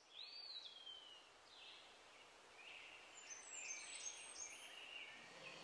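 Faint birds singing over a steady background hiss: a whistled note near the start that rises and then slides down, followed by a string of short, repeated high chirps.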